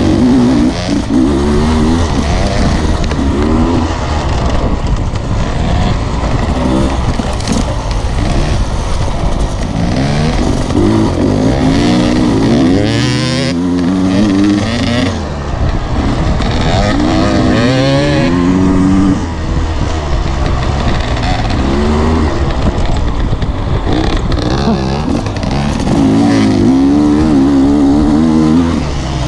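Off-road dirt bike engine being ridden hard on a dirt trail, its note rising and falling over and over as the throttle is opened and closed.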